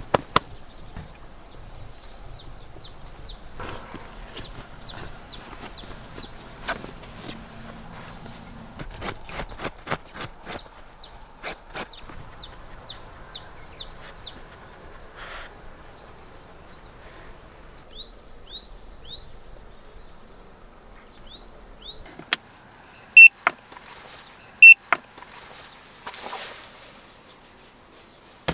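Small birds singing outdoors: runs of quick, high, downward-sliding chirps repeated over and over, fading out in the last few seconds. Scattered light clicks are heard, and two sharp clicks a second and a half apart near the end are the loudest sounds.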